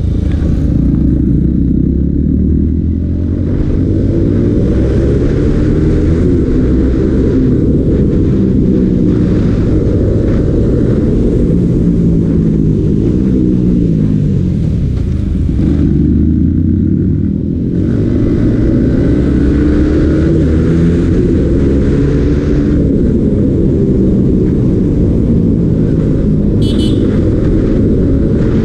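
Yamaha MT-15's 155 cc single-cylinder engine running hard on the road, its note climbing and falling again and again as it accelerates and shifts. The throttle eases off briefly about three seconds in and again a little past halfway.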